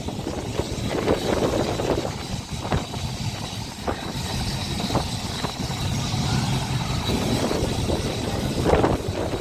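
Boat tram 600 running along the line, heard on board: a steady rumble of wheels and motors, with a few sharp clicks over the rail joints.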